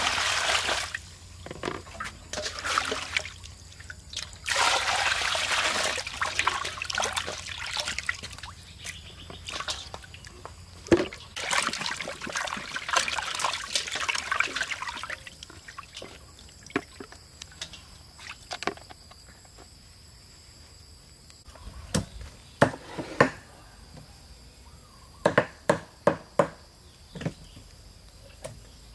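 Water poured into a large steel bowl, then sloshing and splashing as whole raw chickens are washed in it by hand. Near the end, a quick series of sharp knocks from knives chopping on wooden chopping blocks.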